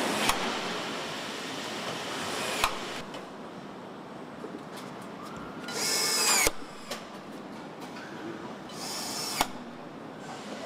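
Cordless power screwdriver driving fasteners into a car body: two short whirring runs, about six and nine seconds in, each ending in a sharp click, over a steady hiss of factory noise.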